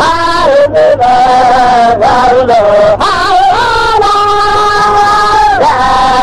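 Chanted singing: one voice holding long notes that slide up and down between pitches, in a melismatic style.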